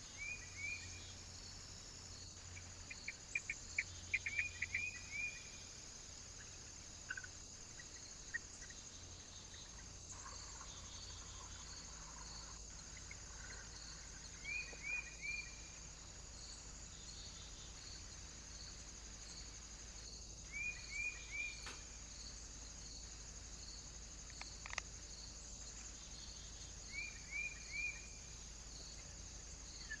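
Faint steady chirring of crickets with a regular pulsing beat, and small birds giving short chirps, mostly in quick runs of three, a few times.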